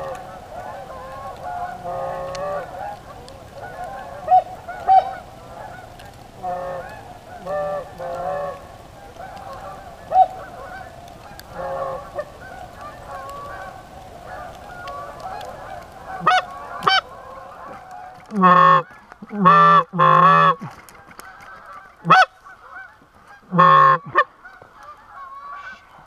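A large flock of Canada geese honking continuously, many calls overlapping in the distance. In the last third the chorus quietens and several loud, close honks come one after another, with a few short sharp clicks between them.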